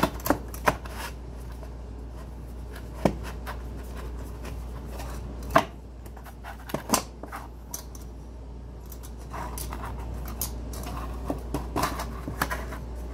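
Metal springform cake pan being handled on a table: scattered sharp clicks and knocks of the pan and its clasp, with light scraping and rubbing between them, over a low steady hum.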